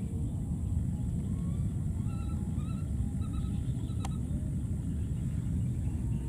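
Steady low rumble, with faint, short, high squeaky calls that rise and fall over it, and a single sharp click about four seconds in.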